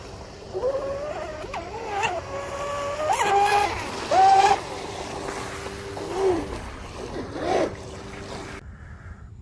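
Fast electric RC speedboat's TP Power 4050 2300kV brushless motor whining as it runs across the water, with the pitch rising and falling about half a dozen times as the throttle is pushed and eased, over a hiss of water. The sound cuts off suddenly shortly before the end.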